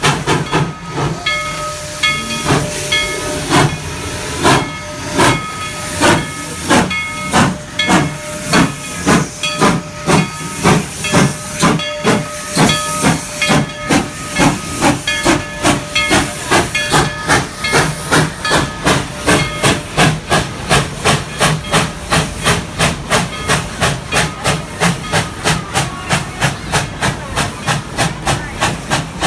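Tweetsie Railroad's No. 190, a narrow-gauge Baldwin 4-6-0 steam locomotive, pulling away from a standstill: sharp exhaust chuffs over hissing steam, starting slowly and quickening steadily to about two or three a second. A faint steady high tone sounds under the chuffs through roughly the first half.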